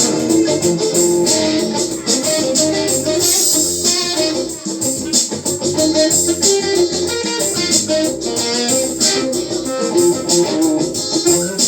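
Instrumental music with a plucked, guitar-like sound: a melody and chords over a bass line, with the notes changing steadily.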